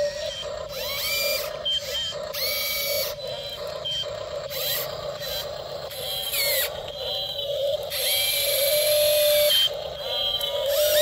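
Radio-controlled model excavator's small electric motors and hydraulics working: a steady hum with repeated bursts of hissing whine, some rising in pitch as the machine moves.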